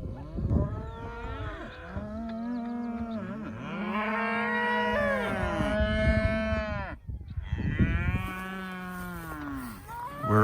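A herd of cattle mooing: several long calls overlap one another, each rising and then falling in pitch, with a short break about seven seconds in.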